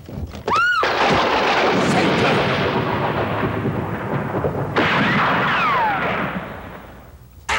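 A short cry that rises and falls, then a loud crash that rumbles on for about six seconds and dies away. A second crash comes about five seconds in, with falling wails.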